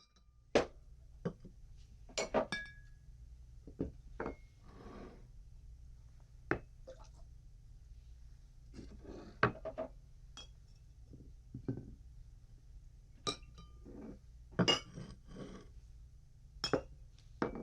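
Glass objects clinking and knocking together in a series of separate, irregularly spaced strikes, some leaving a brief ringing tone.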